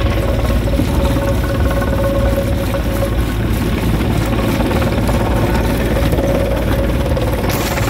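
Stone crusher machine running steadily under load, a heavy low rumble with a constant hum through it.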